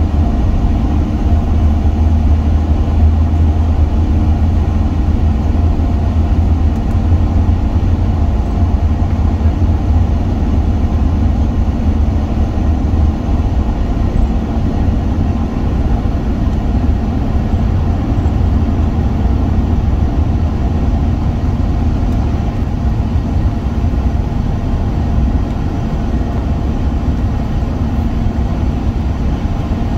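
Airbus A380's four jet engines at takeoff power, heard from inside the cabin through the takeoff roll and liftoff. It is a loud, steady, low rumble that eases a little in the second half as the aircraft climbs away.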